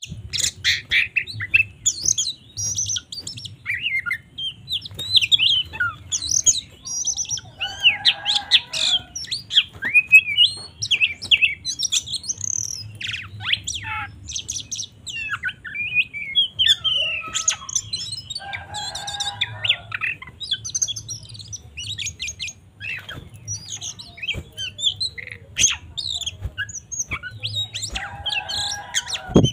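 Oriental magpie-robin (kacer) singing a fast, varied song of whistles, chirps and trills. Three times, about 8, 19 and 28 seconds in, it breaks into a harsh rasping call, part of the agitated 'fighting' song. A faint steady hum runs underneath.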